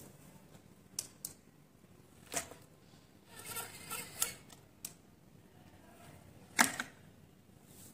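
Scattered light clicks and knocks from a small homemade RC tractor straining to pull a brick-loaded toy trolley, with one sharper knock about two-thirds of the way in.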